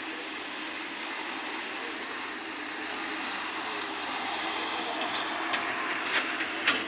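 Boeing 787 airliner's jet engines running at taxi: a steady rushing noise with a low hum. Several sharp clicks come in the last two seconds.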